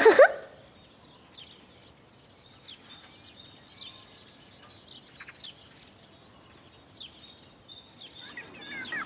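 A short loud sound with a falling pitch right at the start, then faint birds chirping in the background: scattered short, high chirps and whistles.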